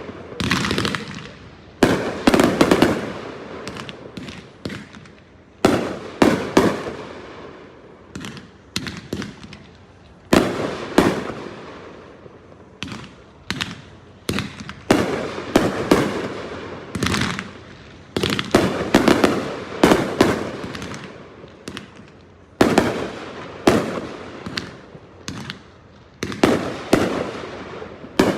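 Fireworks finale: shells bursting one after another, each a sharp bang with a fading tail, coming every second or two and sometimes in quick clusters.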